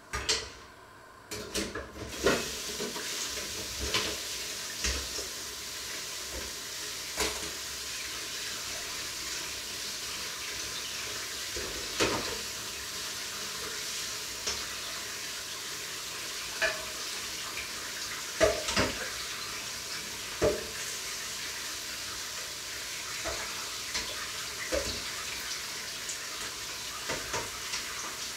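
Water running steadily from a kitchen tap, switched on about a second in, with scattered knocks and clatter of things handled under it.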